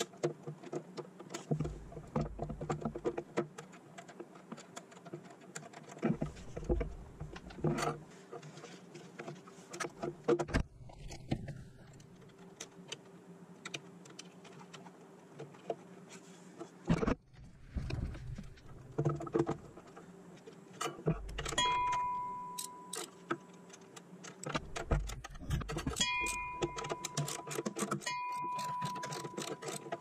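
Repeated metallic clicks and clinks from a ratchet and socket running nuts onto the shifter mounting-plate studs, with occasional dull knocks.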